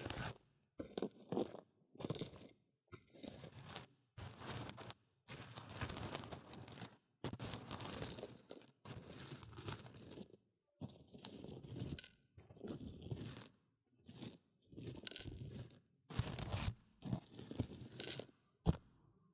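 Raw rice grains spooned onto and stirred around the silicone ear of a binaural microphone, heard right at the ear as crunchy grain rustling in a run of short bursts with brief silences between.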